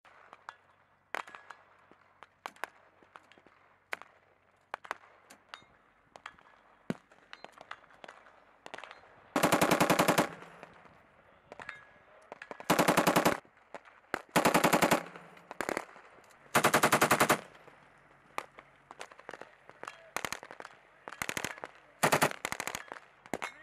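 Belt-fed machine gun firing bursts of automatic fire, each about a second long or less, starting about nine seconds in and coming again near the end. Scattered single gunshots sound before and between the bursts.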